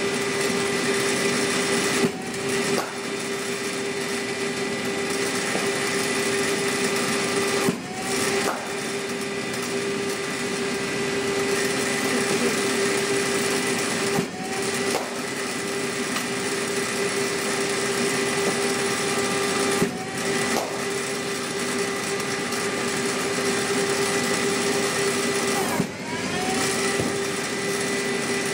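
Cricket bowling machine's motor running with a steady hum, broken by a sharp knock about every six seconds, five in all, as balls are fired and struck by the bat. Each knock is followed by a short rising whine.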